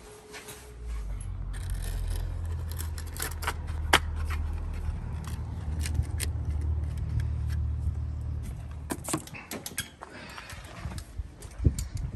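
Small plastic clicks, scrapes and rattles of hands working a wall-mounted rotary isolator switch box and its cable, over a low steady rumble that dies away about nine or ten seconds in.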